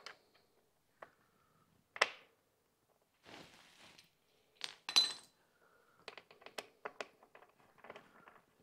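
Metal bolts and hand tools clinking and knocking as bolts are started into motorcycle parts: scattered sharp clinks, the loudest about two and five seconds in with a brief metallic ring, then a quick run of light clicks near the end.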